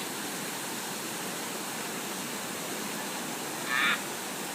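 Steady rush of flowing water, with one short, sharp call rising above it near the end.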